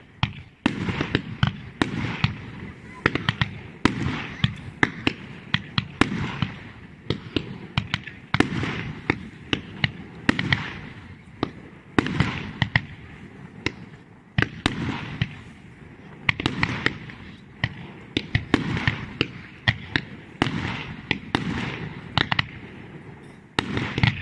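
Fireworks display: a rapid, continuous barrage of shell bursts and sharp bangs, several a second, over a low rumble.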